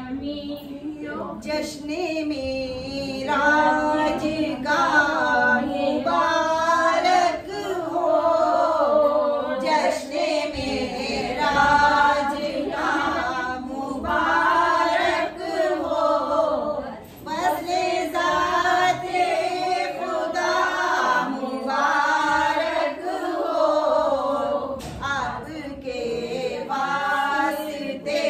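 A group of women singing a devotional recitation together, unaccompanied, in long melodic phrases with brief breaths between them.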